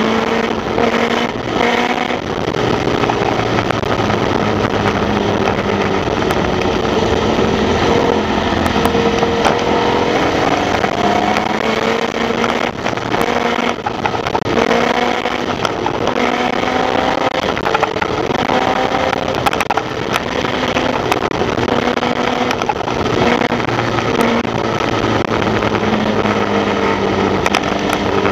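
Onboard sound of a Formula Vee race car's air-cooled Volkswagen flat-four engine running hard. Its pitch climbs and drops back several times with gear changes and corners, over a steady rushing noise.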